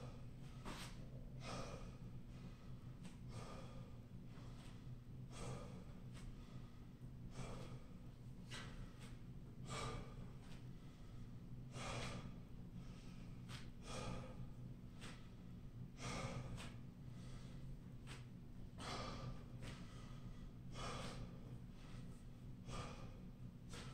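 A man breathing hard and winded from high-intensity interval exercise, with heavy, audible exhales about once a second. A steady low hum runs underneath.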